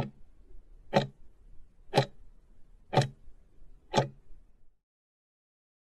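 Countdown timer's clock-tick sound effect: five sharp ticks, one a second, marking the final seconds counting down to zero, then cutting off.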